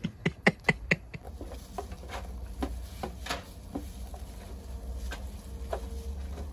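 Rubber slides slapping on concrete paving as a man walks, a quick run of sharp clicks in the first second. Then scattered soft taps and rustles of gloved hands plucking a scalded chicken in an aluminium tray, over a steady low rumble.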